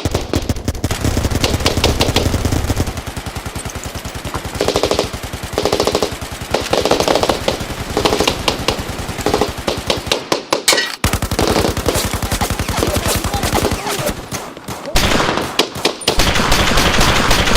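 Sustained automatic gunfire, long rapid bursts one after another with only short breaks, and a brief pause about ten and a half seconds in.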